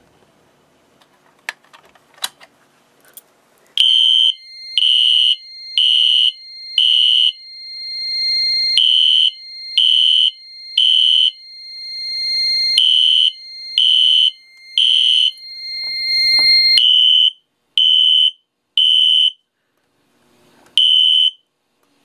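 A few clicks, then a System Sensor SpectrAlert Classic horn-strobe sounding the temporal code-3 fire alarm pattern: loud beeps in groups of three with a longer pause between groups, over a steady higher tone that stops about three-quarters of the way through. The horn falls silent after a last beep near the end as the alarm is silenced at the panel.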